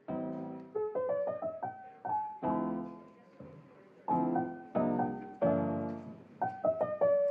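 Background piano music that starts suddenly, with struck chords and short runs of notes that ring and fade.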